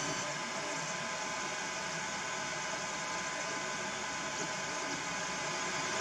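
FDM 3D printer running mid-print: a steady fan hiss with faint fixed whining tones from its motors.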